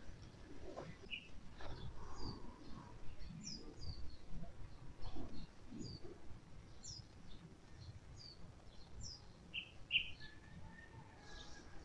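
Small birds chirping in short, scattered high calls, the loudest a pair about ten seconds in. Underneath, close rustling and handling of a cloth jacket and a bag, busiest in the first half.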